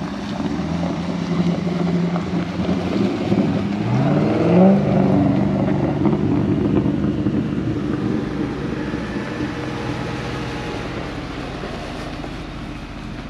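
4x4 engines, a Jeep Grand Cherokee and a Mercedes G-Class V8, running in low gear as they crawl down a steep dirt track. One engine revs up briefly about four seconds in, then the running settles and fades a little toward the end.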